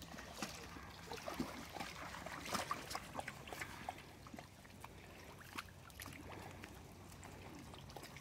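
Dogs wading and drinking in shallow pond water: faint, irregular splashing and lapping.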